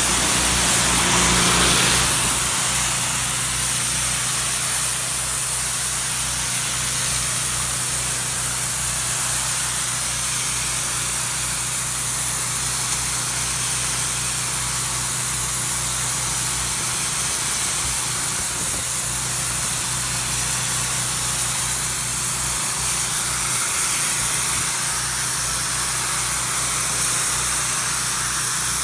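Pressure washer spraying water onto a driveway: a steady, loud hiss of spray over the steady hum of the washer's engine.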